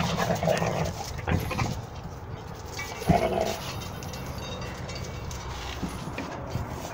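Two red-nose pit bulls playing roughly at close range: dog play sounds with a few sudden louder noises in the first three seconds, the sharpest about three seconds in, then quieter.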